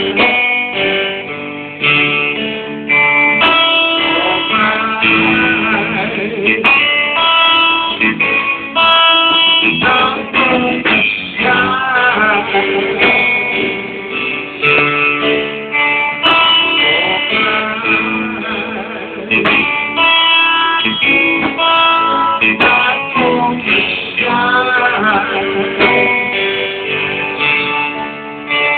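A live blues band plays an instrumental passage led by guitar, with notes that bend and waver in pitch over the band.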